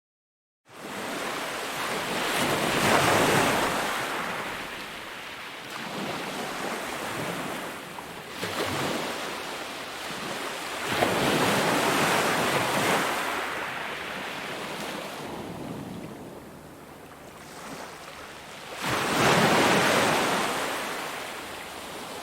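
Ocean surf: waves breaking and washing in, swelling and fading three times about eight seconds apart. It starts suddenly out of silence just after the beginning.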